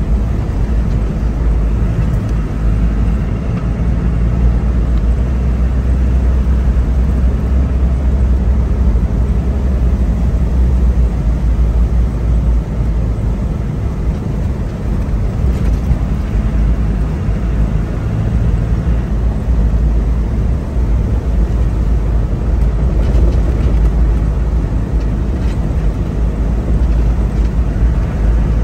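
Steady in-cabin drone of a 1995 Land Rover Discovery's 200Tdi turbo-diesel engine and its tyres rolling on a gravel road at low speed.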